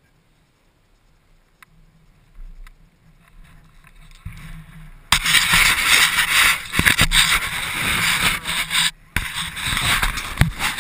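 A hand handling a GoPro camera in its housing and turning it on its mount: loud rubbing and scraping on the microphone that starts suddenly about five seconds in and breaks off briefly near the end. Before that there are only a couple of faint clicks.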